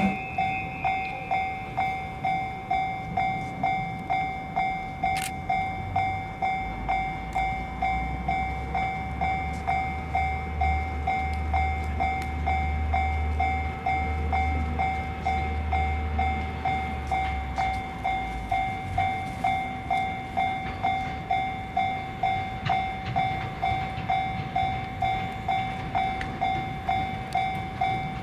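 Japanese level-crossing warning bell ringing its electronic two-tone ding at an even pace of about one and a half rings a second while the barrier is down. A low rumble swells under it for about ten seconds in the middle.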